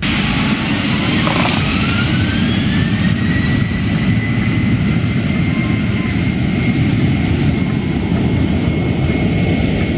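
Engine running up: a whine rises over the first three seconds and then holds at one steady pitch over a loud, continuous rumble.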